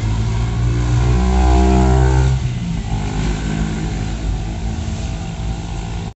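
Car driving on a wet road, heard from inside the cabin: a steady engine hum under the hiss of tyres and rain. The engine drone is loudest for the first two and a half seconds, then eases.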